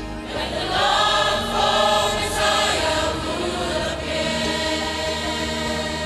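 Mixed choir of men's and women's voices singing a Christian hymn in harmony. The voices swell in fuller just after the start.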